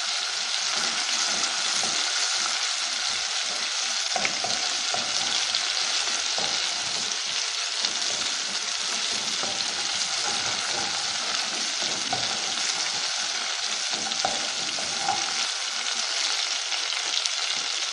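Tomato paste and garlic frying in hot oil in a saucepan: a steady sizzle, with occasional faint scrapes of a wooden spoon stirring it.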